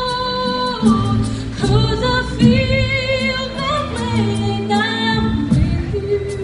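A woman singing a slow ballad live over instrumental backing, holding long notes.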